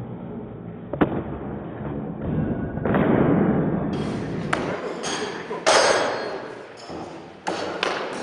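Sparring with short training weapons: a scatter of sharp knocks and thuds as weapons strike and feet move on the floor, irregular and a few seconds apart.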